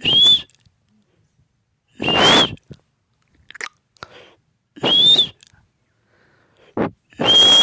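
Pet parrot giving short, harsh, screechy calls, four of them spaced about two seconds apart, each with a shrill note that rises and falls, plus a brief chirp near the end.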